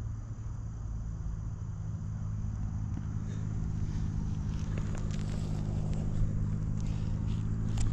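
A steady low mechanical hum of several held pitches. From about three seconds in, short clicks and rustles of handling the fish and scale are heard.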